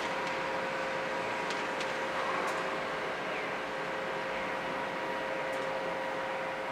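Steady city background hiss with a constant machine hum and a few faint ticks.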